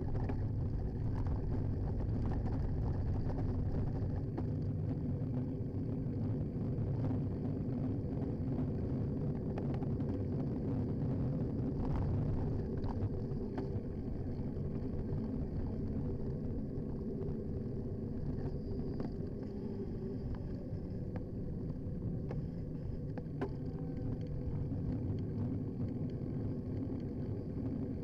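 Steady road and tyre rumble from a bicycle being ridden, picked up through a handlebar-mounted action camera, with a few faint clicks and rattles from the bike.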